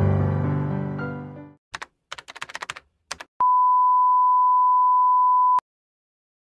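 Music fading out, followed by a quick run of computer keyboard typing clicks, then a single steady electronic beep lasting about two seconds that cuts off suddenly.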